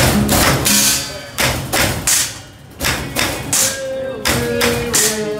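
Teppanyaki chef's metal spatula and cup striking the steel griddle and each other in a quick rhythmic clatter, about two sharp knocks a second.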